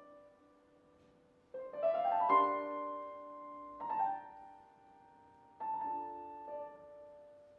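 Piano playing in a contemporary classical chamber piece: a quick rising flourish about one and a half seconds in, then chords struck about four and five and a half seconds in, each left ringing and fading.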